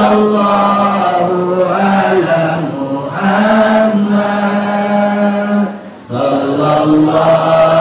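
A man chanting shalawat, the Arabic blessing on the Prophet Muhammad, into a microphone in long, drawn-out melismatic notes, with a short pause for breath about six seconds in.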